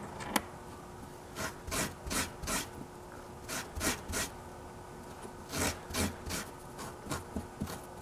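Carbon motor brush scrubbed on a Scotch-Brite pad wet with brake cleaner: short scraping strokes in several quick bursts. The brush is being cleaned of gum, not ground down.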